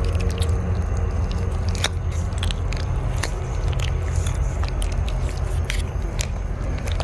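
Zombie horror sound effects: gnawing and crunching clicks, like chewing, scattered over a steady low rumble.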